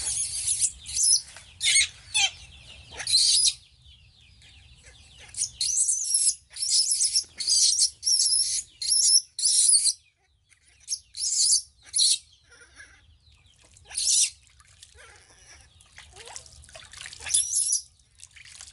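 Newborn baby monkey giving repeated shrill, high-pitched squeals in runs of short cries, with a lull about four seconds in, while water splashes and drips from its wet fur.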